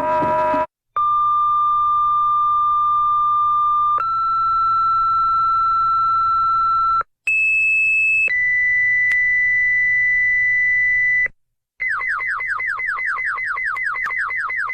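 Electronic emergency alert tones: a steady pure tone that steps up in pitch every one to three seconds, broken by short gaps, then a rapid run of falling chirps, about six a second.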